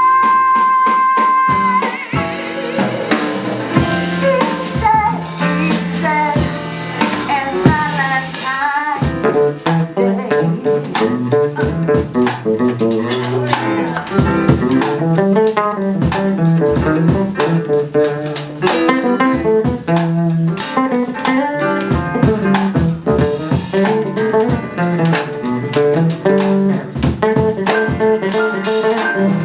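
Live band playing a bluesy instrumental passage: guitar over bass and drums. A long held note opens it, and the drums pick up a steady, busier beat about nine seconds in.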